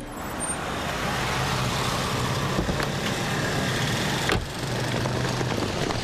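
A motor vehicle running amid a steady wash of street noise, with a single sharp knock about four seconds in.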